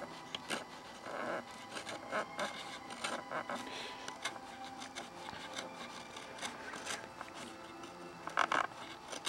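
Hobby knife scraping and cutting along the edge of a model plane's wooden fuselage, lifting the plastic covering film off the wood: faint, irregular scratches and small clicks.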